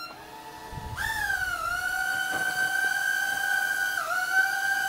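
Cheerson CX-10WD mini quadcopter's four tiny coreless motors spinning up, rising in pitch about a second in, then a steady high whine while it flies, with a brief dip in pitch near the end.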